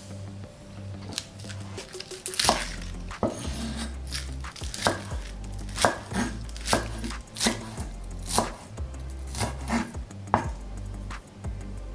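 Kitchen knife slicing a spring onion on a wooden cutting board: a series of sharp knocks of the blade meeting the board, roughly one or two a second, starting about two seconds in.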